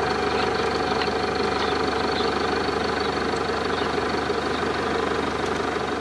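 Vehicle engine idling steadily, loud and close, as from inside the car.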